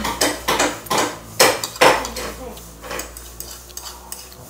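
Metal fork clinking and scraping against a ceramic plate while noodles are eaten from it, several sharp strokes in the first two seconds, then softer ones.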